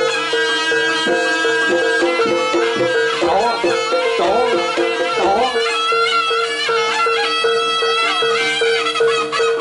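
Live East Javanese jaranan music from a traditional ensemble: a steady repeated note held underneath, with a wavering melody over it.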